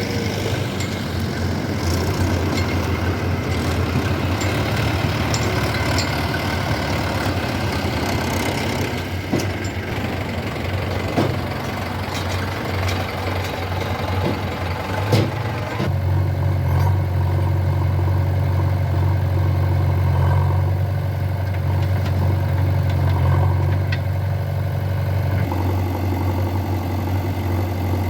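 Diesel engine of a backhoe loader or tractor running steadily, with a few sharp knocks. About 16 seconds in, the engine's low hum steps up and grows stronger.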